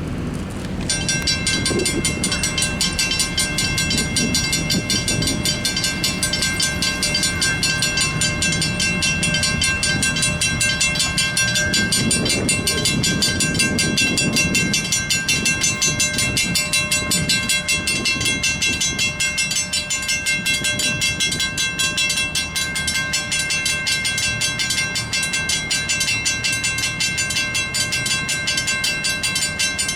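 Railroad crossing warning bells, Western Cullen Hayes mechanical bells, start about a second in and keep striking rapidly and evenly with a bright metallic ring; the nearer bell has been sped up. A low rumble swells and fades in the middle.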